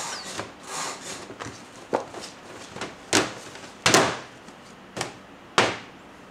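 Hands degassing risen rye bread dough in a plastic tub, then lifting it out onto the counter: soft rustling with about four dull thumps and knocks of dough and hands against the tub and worktop, the loudest near four seconds in.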